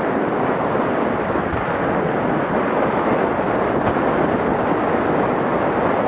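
Steady rush of wind over the microphone.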